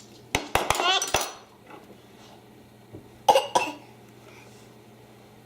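Dishes and cutlery clinking as they are handled, with a quick cluster of sharp clicks in the first second and two louder knocks about three seconds in.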